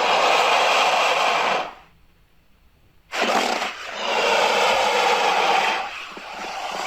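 Creature sound effects in the style of the Alien and Predator films: two long, harsh, raspy hisses, each lasting about two seconds, separated by about a second of quiet, the second one trailing off into a softer rasp.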